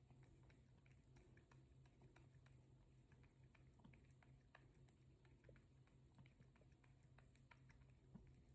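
A cat lapping water: faint, quick, irregular clicks of its tongue at the water surface.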